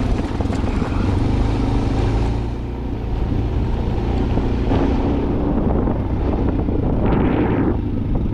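Steady low rumble with wind noise on the microphone. A rough, louder surge comes about seven seconds in.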